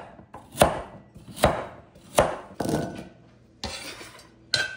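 Chef's knife chopping peeled carrots on an end-grain wooden cutting board, three sharp chops less than a second apart. Then a bench scraper scrapes the pieces across the board and into a glass measuring cup, ending in a short ringing clink of glass.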